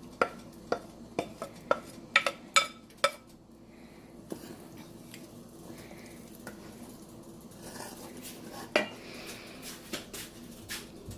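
A cooking utensil knocking and scraping against a pot while greens are stirred in it. There is a quick run of about eight sharp clinks in the first three seconds, then quieter stirring with a few more knocks, one of them loud later on.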